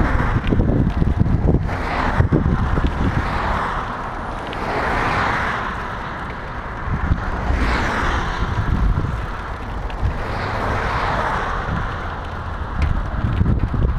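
Wind buffeting the microphone of an action camera moving along a highway, a steady low rumble throughout. Over it, the tyre noise of passing cars swells and fades about five times.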